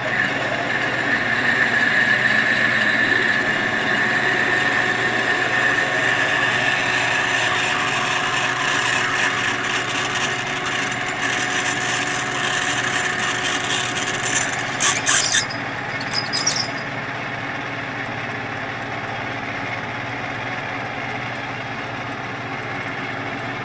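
Metal lathe running while a drill bit fed from the tailstock bores out the centre hole of a snowmobile drive clutch, with a steady cutting whine over the motor hum. A few short scraping bursts come about fifteen seconds in, then the cutting stops and the lathe runs on more quietly.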